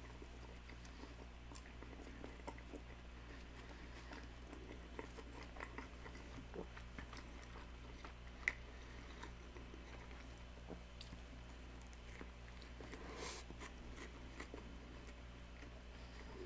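A person chewing and biting a McDonald's McRib sandwich close to the microphone, with faint wet mouth sounds and small clicks. One sharper click comes about eight and a half seconds in.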